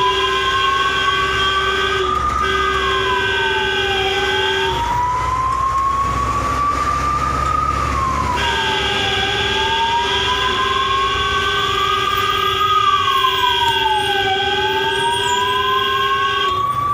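Ambulance siren wailing: a tone glides slowly up, then falls back more quickly, about every five seconds. Under it a steady higher tone drops out twice, and a low vehicle rumble continues.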